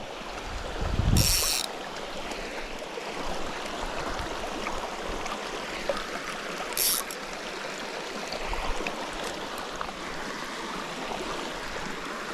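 Small trout stream running steadily over rocks, a constant rushing of water. Two brief high hissing rustles cut through it, about a second in and again near seven seconds.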